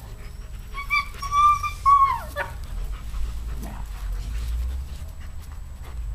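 A German Shepherd whining: one high, drawn-out whine about a second in, lasting about a second and a half, held level and then dropping in pitch as it ends. A low rumble follows.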